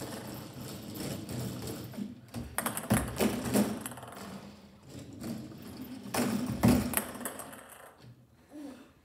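Foosball table in play with a ping pong ball: metal rods sliding and rattling and plastic players clacking against the light ball. There are louder bursts of clatter about three seconds in and again past six seconds.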